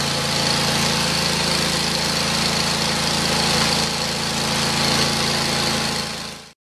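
Hud-Son Oscar 36 portable band sawmill's engine running steadily, not in a cut, then fading out quickly and cutting off just before the end.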